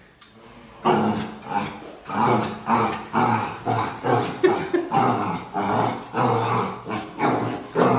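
A dog growling and barking in short, quick bursts, about two a second, starting about a second in.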